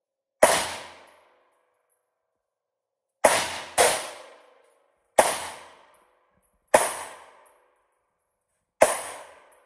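Six single shots from an AR-style rifle, fired at an uneven, deliberate pace, two of them about half a second apart near the middle. Each shot rings off in the reverberation of the indoor range.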